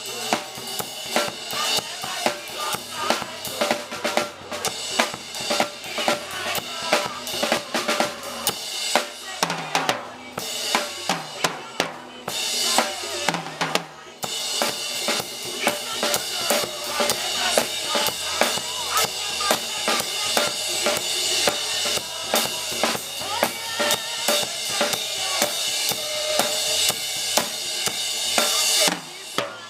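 Church band music driven by a drum kit keeping a steady beat on bass drum and snare, with two short breaks in the drumming about twelve and fourteen seconds in.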